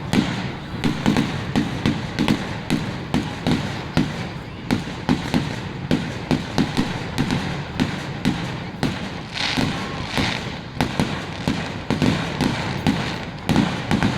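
Aerial fireworks bursting in a rapid barrage, about three or four booming bangs a second. A stretch of hissing crackle comes about nine seconds in.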